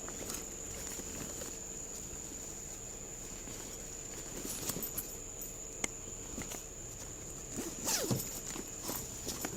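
Footsteps, rustling and handling noises with scattered light clicks, busiest about eight seconds in, over a steady high-pitched electronic whine.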